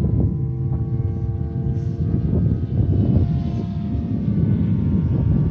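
Electric RC airplane flying overhead: its motor and propeller drone with a steady whine of several held tones, over a low rumble.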